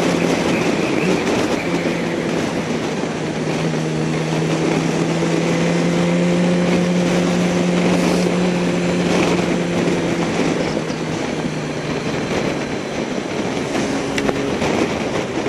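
Motorcycle engine running at a steady cruise, heard from on the bike over wind and tyre noise on a wet road. The engine note drops slightly in pitch a couple of times.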